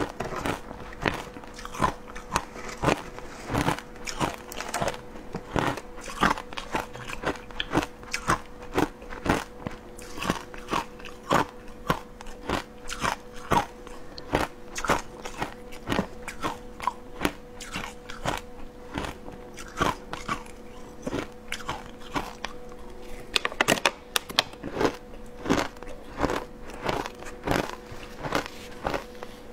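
Frozen matcha shaved ice being bitten and crunched in the mouth: a steady run of crisp crunches, about two a second, coming thicker and faster about three-quarters of the way through.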